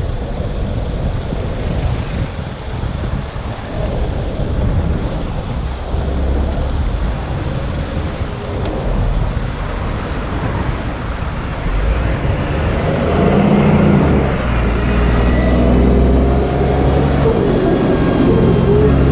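A steady, noisy low rumble of a vehicle in motion. About twelve seconds in it grows louder and whining tones join it.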